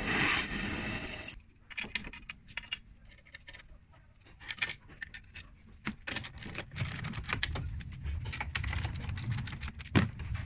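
Drill press boring into steel for about a second and a half, cut off suddenly. Then scattered light metallic clicks and clatter of a screwdriver, bolts and a steel rod in pillow-block bearings being worked by hand, with one louder knock near the end.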